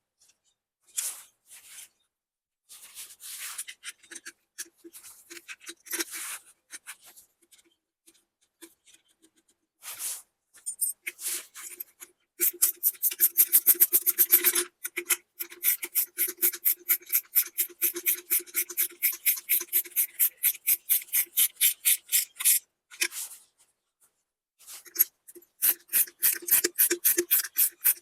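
Hand ratchet wrench clicking in a fast, even rhythm as bolts are run in, in several spells with short pauses, the longest running about ten seconds.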